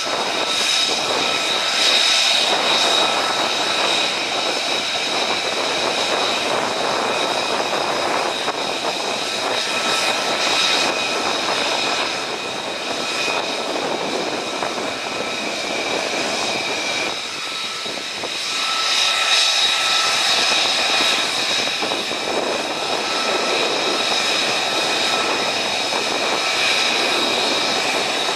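Jet engines of a formation of taxiing military aircraft led by F-35 fighters, running with a steady high whine of several tones over a broad rush. The sound eases a little twice past the middle and swells again soon after.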